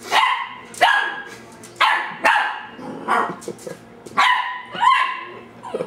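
Ten-week-old dachshund–Labrador cross puppy barking at her own reflection: about eight short, sharp puppy barks, spaced unevenly half a second to a second apart.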